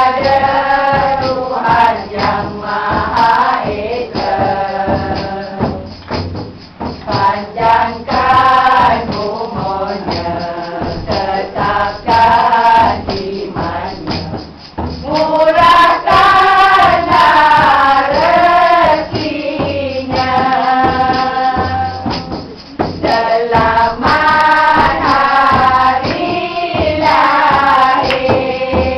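A group of women singing together in chorus, accompanied by hand-struck frame drums and a jingling tambourine, in long sung phrases with brief pauses between them.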